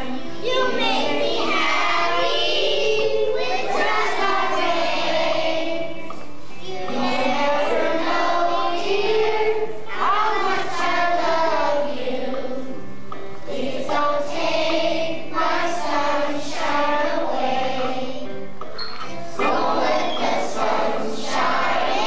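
A group of kindergarten children singing a song together as a choir.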